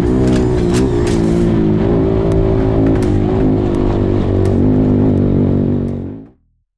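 Honda Monkey 125's single-cylinder four-stroke engine running through a full Akrapovic exhaust as the bike rides at a fairly steady speed, its pitch wavering slightly, with a few sharp ticks over it. The sound fades out near the end.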